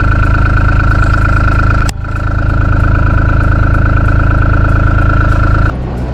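A vehicle engine running at a steady speed, with an abrupt break about two seconds in and a drop in level near the end.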